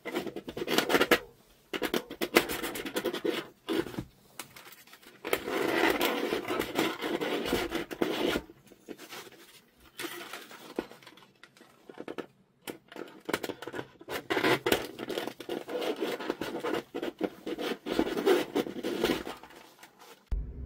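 Scratching and rubbing in several irregular spells, with small clicks, as the detached paper cone, cloth spider and voice-coil former of an 18-inch speaker are handled.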